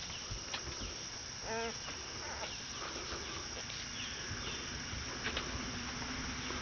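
Newborn basset hound puppies giving faint, short squeaks and whimpers, with one clearer cry about a second and a half in, over a low background hiss.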